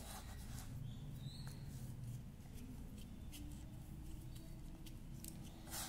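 Faint scratching and light ticking of hands scooping and packing magic sand into a plastic mould, over a low steady hum.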